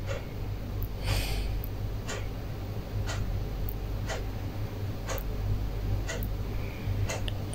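Hand squishing raw chicken pieces through a tomato masala in an aluminium pot in the first second or so, over a steady low hum. Faint short clicks at a fairly even rate of about one a second run on after the stirring stops.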